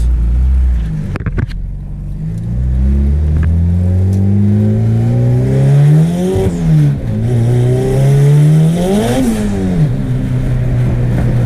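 Turbocharged Honda B-series GSR four-cylinder pulling hard under acceleration, heard from inside the cabin: the revs climb for a few seconds, drop sharply at a gear change about six seconds in, climb again, then fall away about nine seconds in and settle to a steady drone.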